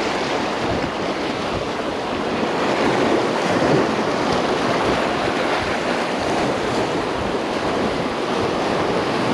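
Surf washing over jetty rocks in a steady rush, with wind buffeting the microphone.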